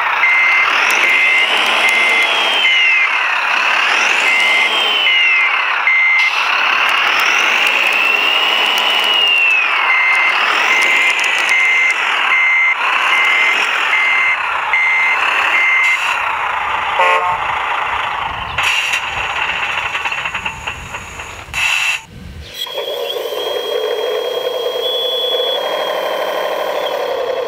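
RC model truck's reversing beeper sounding evenly spaced beeps in two runs, over a motor whine that rises and falls in pitch. Near the end a steady hum takes over.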